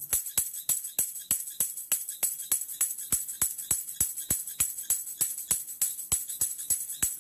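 A metallic jingle struck in a steady beat, about three strikes a second, each with a bright, tambourine-like ring.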